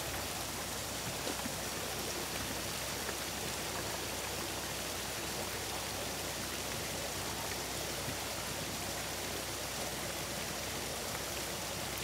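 Water running down a rock-lined backyard stream and over its stone spillways: a steady, even rush that holds at one level throughout.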